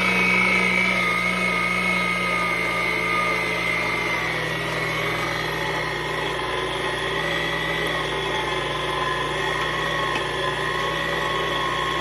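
Heavy-duty electric meat grinder running on its low setting and grinding rabbit meat fed down its tube: a steady motor hum and whine, its pitch sagging slightly a few seconds in.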